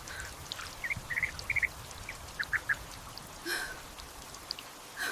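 Rain falling and dripping, with scattered drop ticks over a steady hiss. Short high animal calls come in small groups about a second in and again about two and a half seconds in.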